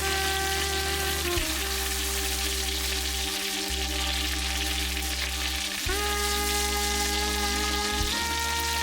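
Food sizzling in a hot frying pan, a steady hiss, under background music of sustained chords that shift about a second and a half in, again near six seconds, and once more near the end.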